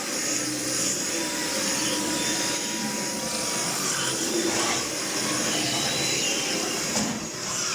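A theme-park dark ride's show soundtrack and ride vehicle: a steady, dense rushing and rumbling noise.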